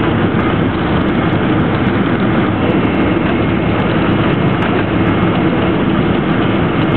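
Steady cabin noise inside a Boeing 767-300: a constant rumble of its Rolls-Royce RB211 engines and rushing air, holding an even level throughout.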